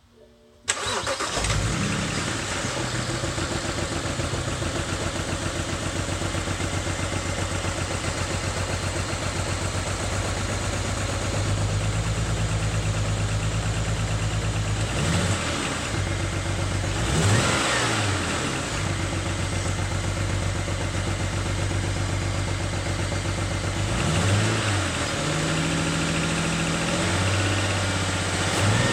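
BMW N54 twin-turbo straight-six starting about a second in and then idling, with several short revs past the middle and near the end. The engine is misfiring, which the owner wants diagnosed.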